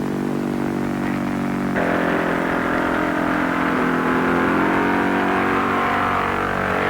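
Piston engine of an experimental turntable-wing light aeroplane running steadily at takeoff power, a steady propeller-driven drone. Its note shifts about two seconds in.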